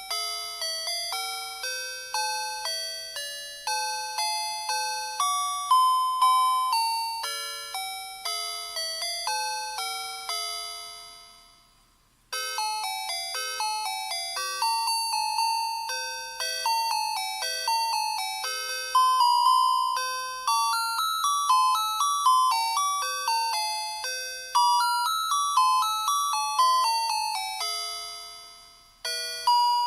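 Electronic bell-tone melody of the kind played by a musical Christmas lights' sound chip, running through a Christmas tune note by note, each note struck and dying away. The tune fades out about twelve seconds in and a new one starts after a brief silence; another tune ends just before the close.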